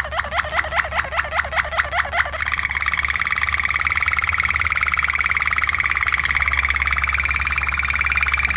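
Waterslager (Malinois) canary singing: a string of short rising notes, about six a second, then from about two seconds in a fast, even rolling trill that stops abruptly at the end, over a steady low hum.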